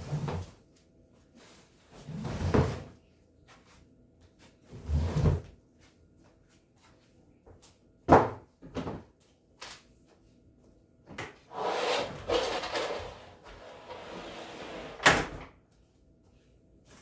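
Household handling noises while cleaning. First come three dull bumps, then a few sharp clicks, then a stretch of scraping and rustling that ends in a sharp knock.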